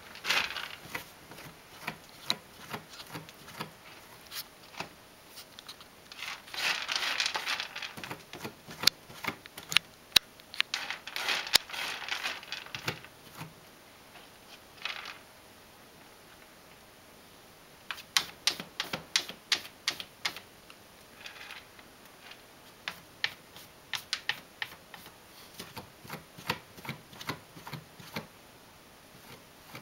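A ragdoll cat's paws scratching and raking cat litter in a hooded litter box: crisp, quick clicks of litter granules alongside short scraping sweeps. It comes in bouts, with a pause about midway, then a run of rapid scratches.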